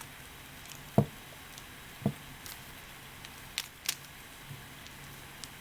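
Handling noise from a plastic mirror cube being turned by hand: two low knocks about a second apart, then a few faint sharp clicks of the layers turning.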